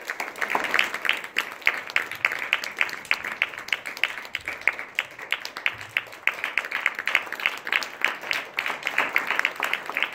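Audience applauding, a steady stream of hand claps.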